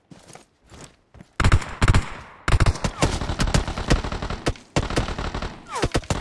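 Video game gunfire: a few light taps, then from about a second and a half in, dense rapid volleys of shots. A couple of falling whistle-like tones sound near the end.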